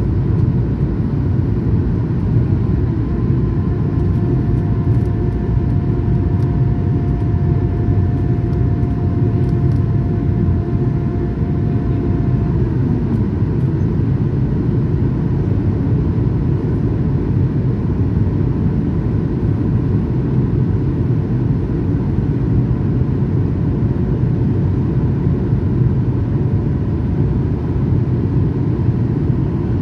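An airliner's jet engines and airflow heard from inside the passenger cabin, a loud, steady, deep noise during the climb after takeoff. A faint steady whine sits above it, and a second whine comes in about four seconds in and stops before the middle.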